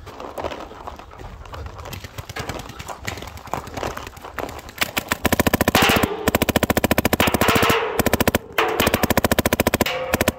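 Paintball markers firing: scattered, quieter shots in the first half. From about halfway in, long, loud, rapid strings of shots, broken by a few short pauses.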